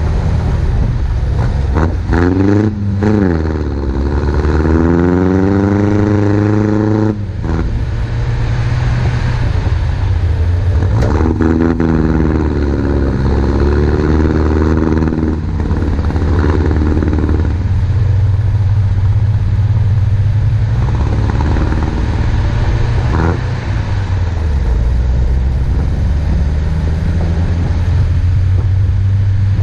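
Off-road 4x4's engine driving through snow: a steady low drone whose pitch rises and falls as it accelerates and eases off, twice in the first half, with a few short knocks along the way.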